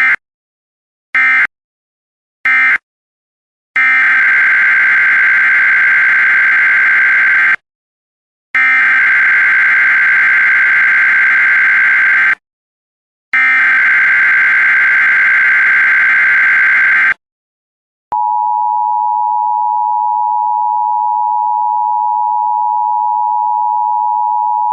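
Emergency Alert System tones. Three short SAME data bursts close out one alert, then three longer SAME header data bursts follow, each about 4 seconds long and about a second apart. About 18 seconds in, the steady two-tone EAS attention signal (853 and 960 Hz together) begins and keeps going.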